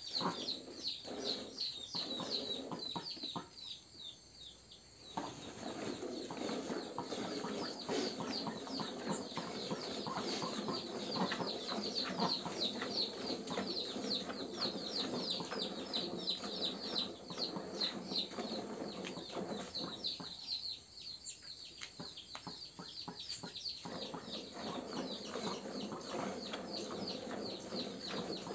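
A cow being milked by hand: streams of milk squirting into a bucket in a steady rhythm, a few short squirts a second.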